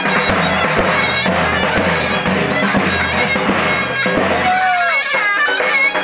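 Davul and zurna playing live folk dance music. The reedy zurna carries the melody, with a sliding note about four and a half seconds in, over davul strokes about twice a second.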